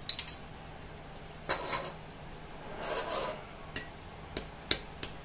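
Metal spoon scraping and tapping against small glass bowls as thick ginger-garlic paste is scooped out and added to curd: two longer scrapes and several sharp clicks.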